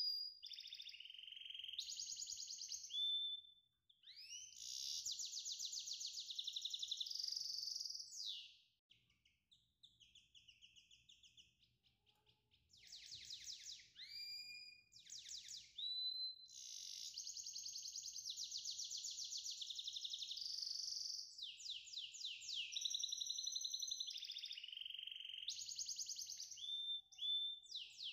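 Songbird singing a long, high-pitched song of fast trills, repeated whistled notes and sliding whistles, pausing briefly twice.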